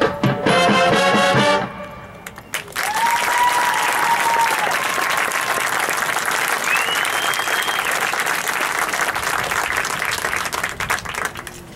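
Marching band brass and percussion sounding a last chord that stops about a second and a half in, followed by a crowd applauding and cheering for about eight seconds, which fades near the end.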